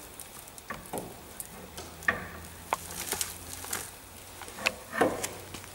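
Scattered metal clicks, knocks and scraping from a Land Rover front axle halfshaft with its CV joint as it is pushed along the axle tube toward the differential.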